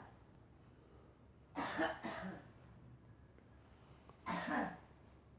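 A girl coughing: two short coughs close together about a second and a half in, and another about four seconds in.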